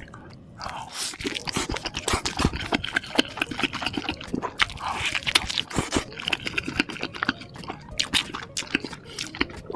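Close-miked eating sounds of someone biting into and chewing a cheeseburger: a dense run of wet smacks and clicks starting about half a second in.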